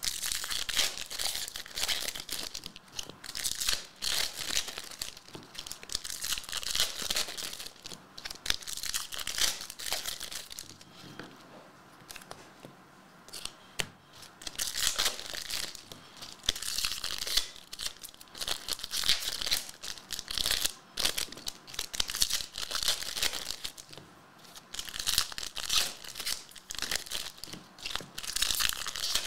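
Foil trading-card packs being torn open and their wrappers crinkled, in repeated bursts with a lull of a few seconds about halfway through.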